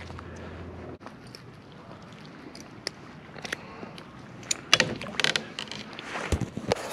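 Scattered light clicks and knocks, thickest about five seconds in, from handling a freshly caught small bass and a pair of fishing pliers aboard a plastic sit-on-top kayak.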